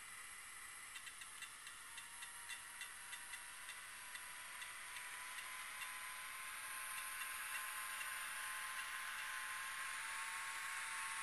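HO-scale PCC streetcar model running on its track, with a light regular ticking of about three clicks a second that fades out after about seven seconds. Behind the ticking is a steady hiss and a thin whine that grow a little louder near the end.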